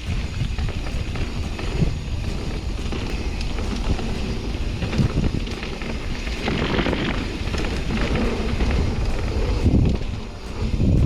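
Wind rushing over the microphone of a camera on a mountain bike riding a dirt trail: a steady low rumble with many scattered rattles and clicks from the bike and tyres.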